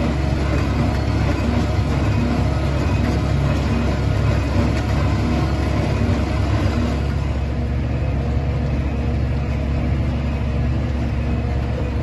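Case tractor engine running steadily while powering a Welger small square baler as it bales hay, the machinery noise carrying a regular low beat.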